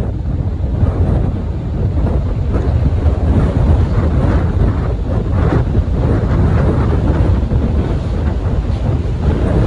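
Wind buffeting the microphone on the open deck of a moving ferry, a loud, steady low rumble over the rush of sea water.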